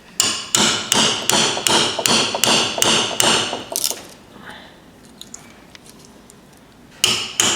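A hammer driving a freshly forged steel chisel into wood, about two and a half blows a second, each with a bright ring. The blows stop after about four seconds and start again near the end.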